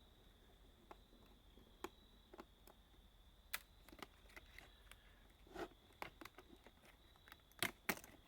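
Light, scattered clicks and taps of hand tools and small electronic parts being handled, sparse at first and busier in the second half, over a faint steady high whine.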